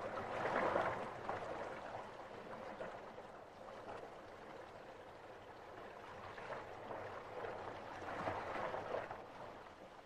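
Faint gurgling, flowing water. It swells briefly near the start and again near the end.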